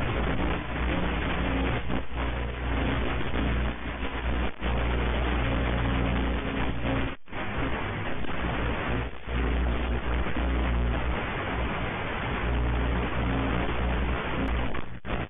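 Electric motor and propeller of a slow stick type RC airplane running steadily in flight, with rushing wind. The sound cuts out briefly a few times, most deeply about seven seconds in.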